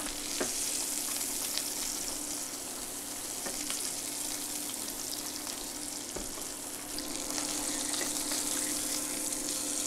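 Kokanee fillet frying in butter and garlic in a stainless steel pan: a steady sizzle with scattered small pops and crackles, over a faint steady hum.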